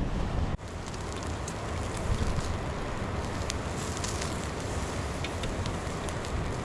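Wood fire crackling with scattered sharp pops, over a low rumble of wind on the microphone.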